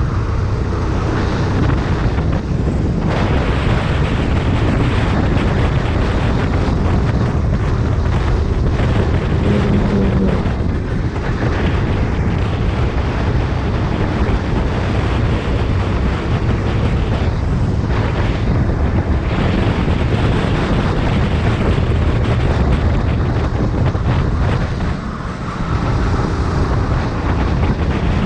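Rental go-kart engine running at racing speed, mixed with heavy wind buffeting on the onboard microphone; the level dips briefly once near the end.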